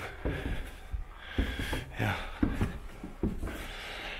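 A man breathing heavily right at the microphone, with a few short dull knocks in between.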